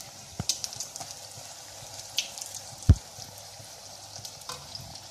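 Puri deep-frying in a wok of hot oil: a steady sizzle with scattered crackles and a few clicks as a metal spatula presses it. One sharp knock just before three seconds in is the loudest sound.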